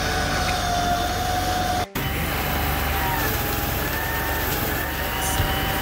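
Argo Conquest 8x8 amphibious ATV's engine running steadily as it drives through water, with a brief gap about two seconds in and its pitch wavering slightly afterwards.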